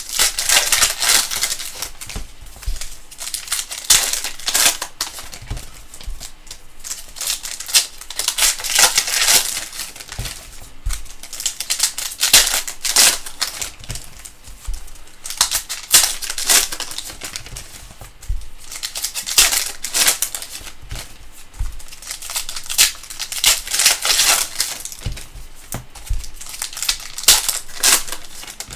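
Panini Prizm basketball card packs being opened and the cards handled. The plastic wrappers crinkle and tear, and the cards click and slide against each other in irregular rustles.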